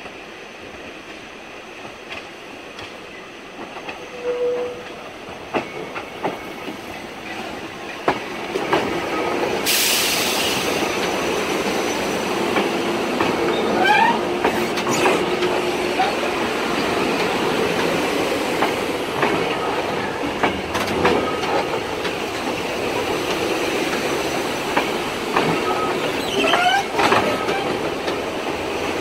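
SEPTA Silverliner IV electric multiple-unit commuter train approaching and passing at close range, its wheels clicking over the rail joints and the rolling noise growing louder as it reaches the camera. About ten seconds in there is a short, sharp burst of air hiss, and brief rising wheel squeals come in the middle and near the end.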